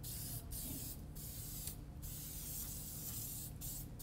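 Aerosol can of black-on-black spray dressing spraying into an engine bay: a steady hiss, broken by several short pauses between bursts.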